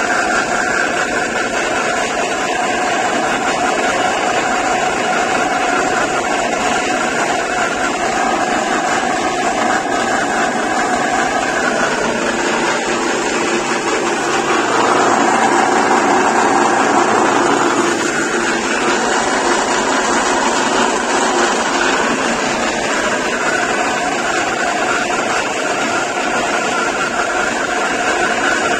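KL180 feed pellet machine with four rollers, driven by an electric motor, running steadily while pressing oat husk and oat powder into pellets. The steady machine noise carries a few constant tones and grows a little louder for a few seconds around the middle.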